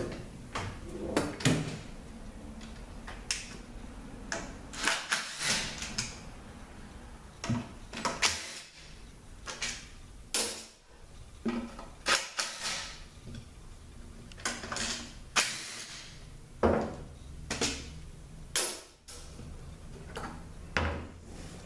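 Irregular clicks, knocks and short scrapes as the last T40 bolts come out and the oil pan of a ZF6HP26 automatic transmission is worked loose.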